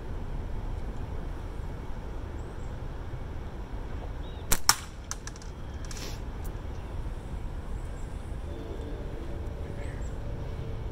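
A slingshot shot with quarter-inch steel: two sharp cracks in quick succession about halfway through, the bands snapping forward and the ball striking the hanging can, then a fainter click about a second and a half later. A steady low rumble runs underneath.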